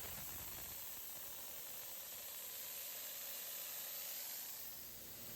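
Compressed air hissing out of an air compressor tank's pressure relief valve, held open to bleed off the trapped tank pressure. A steady hiss that eases off near the end.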